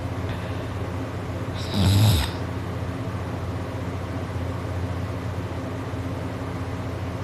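A sleeping person snoring: one loud, short snore about two seconds in, falling in pitch, over a steady low hum.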